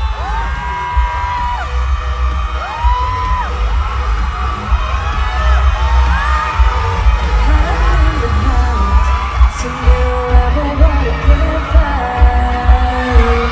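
Live pop song over an arena sound system: held sung vocal notes that slide between pitches, over a heavy bass beat. The beat grows more pronounced in the last few seconds.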